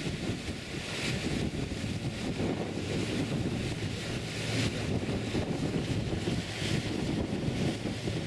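Cruise ship tender boat's engine running hard while the boat holds itself firm against the ship's side, its propeller wash churning the water. Wind gusts on the microphone several times.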